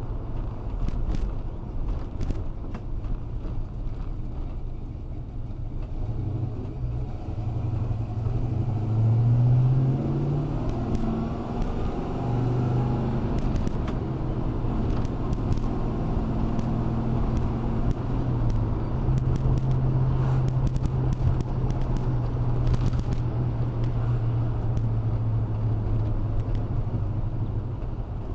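1965 Buick Gran Sport's 401 cubic-inch nailhead V8 pulling the car along, heard from inside the cabin. The engine note climbs in pitch and gets loudest about a third of the way in, drops back, then runs steadily through the rest.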